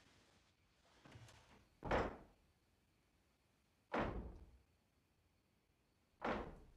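A soft thump about a second in, then three heavy bangs about two seconds apart, each ringing briefly, like a door slamming or a hard knock on wood.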